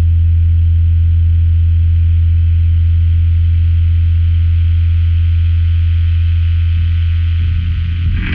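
Loud, steady distorted electric guitar drone through an amplifier, one note held with a low hum beneath it and no fading. About seven and a half seconds in it starts to break up as new playing comes in.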